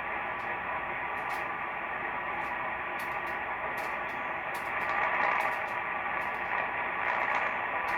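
CB-band static hissing from an SDR receiver's loudspeaker, with scattered crackles and no clear voice coming through.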